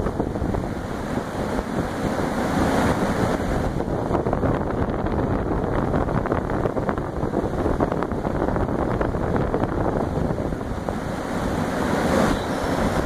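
Alugen 6K-I ST portable evaporative air cooler running, its fan blowing a steady rush of air that buffets the microphone, swelling briefly twice.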